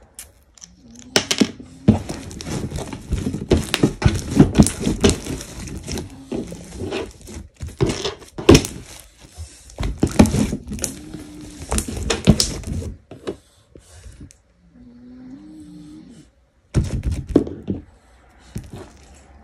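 Slime being kneaded and squeezed by hand: a dense run of wet, squelching clicks and pops for about twelve seconds, then quieter, with one more short squish near the end.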